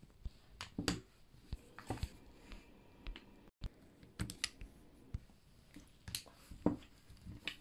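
Plastic panels and steel magnetic balls of a magnetic building set clicking and knocking together as pieces are snapped into place: a dozen or so sharp, irregular clicks.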